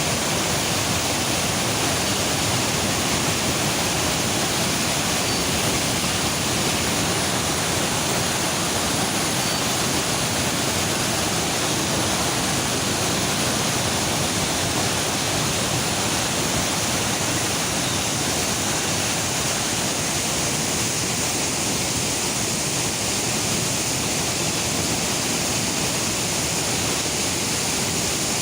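Fast, heavy river water rushing through rapids: a loud, dense, unchanging rush of white water.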